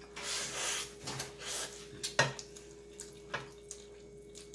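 A person slurping instant noodles straight off a tray with the mouth: wet sucking slurps in the first second and a half, then a few wet smacking clicks, quieter toward the end.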